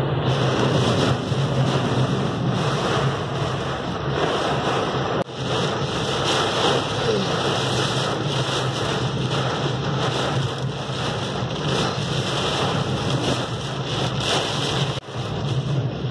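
Heavy rain hitting a moving car's roof and windscreen in a storm, heard from inside the car, mixed with wind and road noise. The noise briefly drops twice, about five seconds in and near the end.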